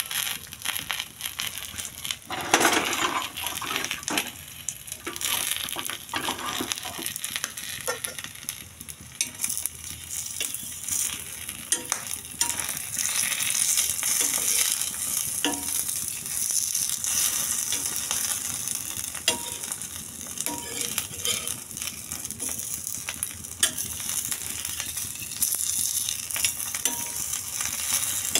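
An egg frying on a flat griddle: a steady sizzle of hot fat with scattered crackles and pops, a little louder about two and a half seconds in.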